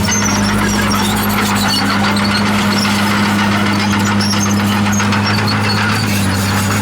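Komatsu D51PX crawler bulldozer working: a steady diesel engine note with scattered high squeaks and rattles from the steel tracks.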